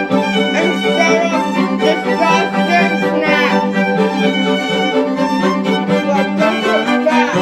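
Background music for bowed strings, violin over a held low string note, playing steadily.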